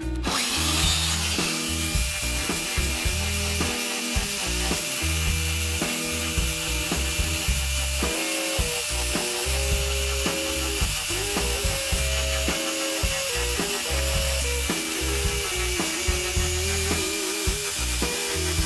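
Angle grinder fitted with an Arbortech Ball Gouge cutting into wood: a steady high whine from the motor with a hissing, rubbing cutting noise as the spinning ball carves dimples. Background music with a stepping bass line plays underneath.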